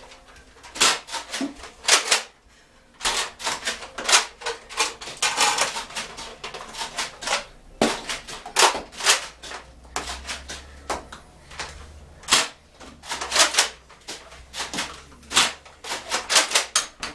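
Nerf blasters being primed and fired: an irregular run of sharp plastic clicks and clacks, several a second, with a short lull about two seconds in.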